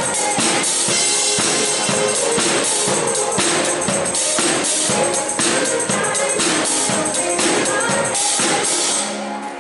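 Live pop band playing an upbeat song with a busy, steady beat of drums and percussion. About nine seconds in, the beat drops out and the music turns quieter.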